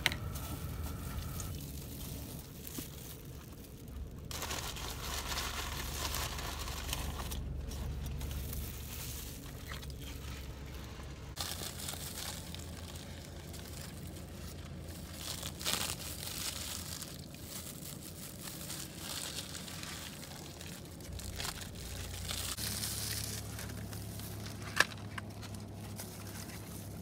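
Paper food wrapper and disposable plastic gloves crinkling and rustling as takeaway food is unwrapped and handled, with one sharp click near the end.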